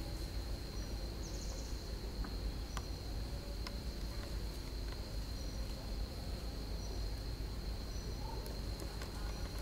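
Steady high-pitched insect drone holding one pitch throughout, with a few faint clicks and brief short high chirps over a low background rumble.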